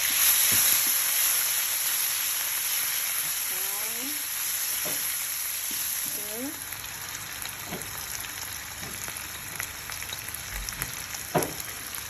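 Chilli sambal (blended dried chilli, garlic and shallot) sizzling in hot oil in a wok, the sizzle strongest just after the start and slowly easing. A few scrapes of stirring and a sharp knock near the end break through it.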